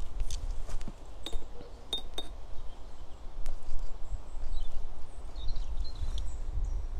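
Low, gusting rumble of wind on the microphone, with a few light clinks in the first half and faint bird chirps in the second half.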